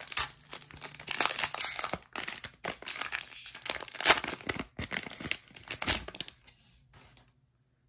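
Plastic wrapper of a 2023 Panini Score football card pack crinkling and tearing as it is ripped open by hand, the stack of cards pulled out of it. The rustling stops about six seconds in.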